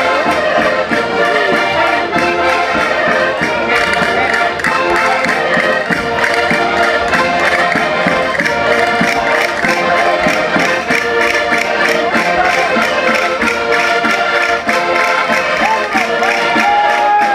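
Concertinas playing a lively chula, Portuguese folk dance music, in many held reed chords over a regular beat. A short sliding tone sounds over it near the end.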